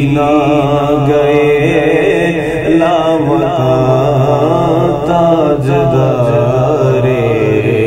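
A man chanting an Urdu naat (devotional poem in praise of the Prophet) solo, in long, wavering held notes with ornamented turns, over a steady low hum.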